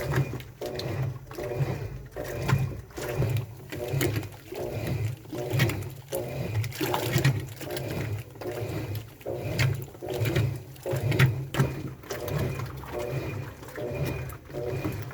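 Washing machine in its wash cycle, churning the water back and forth with a steady rhythmic swish, about three strokes every two seconds, each with a low motor hum.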